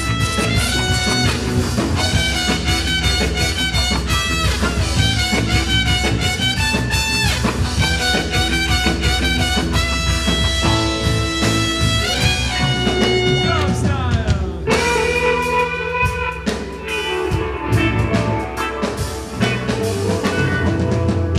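Instrumental break of a rock song with no singing: a busy run of guitar notes over a drum kit, with a sliding note about two-thirds of the way through.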